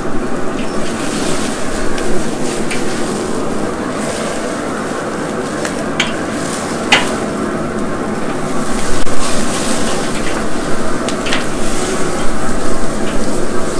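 Grease fire flaring in a Recteq RT-B380 Bullseye pellet grill: tomahawk steaks sizzling and fat crackling steadily over the flames, growing louder in the second half, with a few sharp clicks as tongs move the steaks on the grate.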